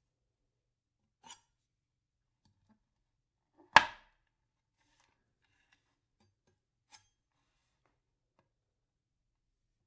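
Three sharp knocks a few seconds apart, the loudest about four seconds in with a short echo, in otherwise near silence.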